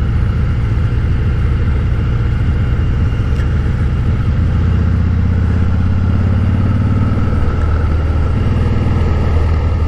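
Harley-Davidson Breakout's V-twin engine running steadily as the motorcycle is ridden along, its note growing fuller about halfway in.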